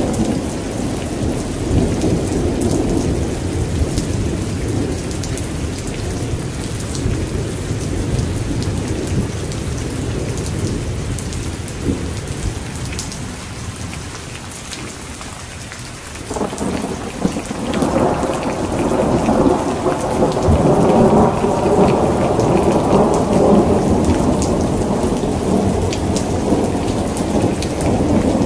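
Heavy rain pouring steadily with rolling thunder. One rumble fades away toward the middle, then a fresh, louder peal of thunder rolls in a little past halfway and keeps rumbling to the end.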